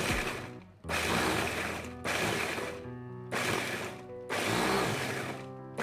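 Electric blender-grinder run in short pulses, about five bursts of a second or so each, coarsely grinding crisp fried garlic and dried chillies.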